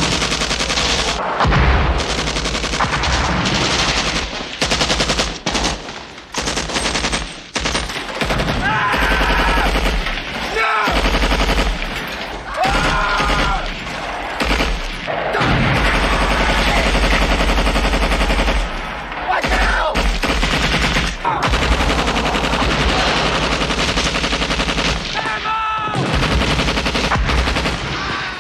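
Dense, continuous automatic gunfire of a film battle scene: machine guns and rifles firing over one another, with men shouting over it several times.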